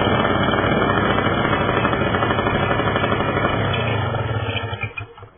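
Black Devil two-stroke paramotor engine running steadily with its propeller turning, just after a cold start, then shut off near the end, dying away in about half a second.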